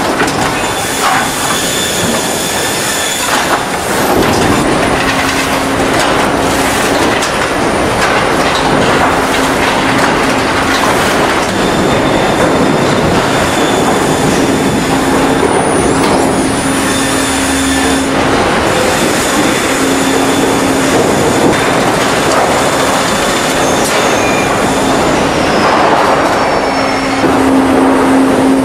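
Machinery on a log-processing sawmill line running: a loud, dense mechanical clatter with knocks in the first few seconds, a low hum that comes and goes, and thin high whines.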